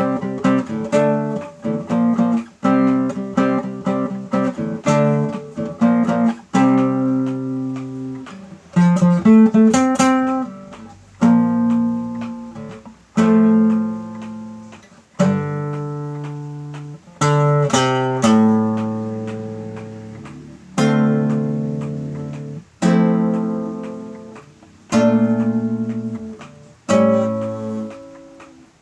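Acoustic guitar playing: quick strummed and picked chords for about the first ten seconds, then single chords struck roughly every two seconds and left to ring out.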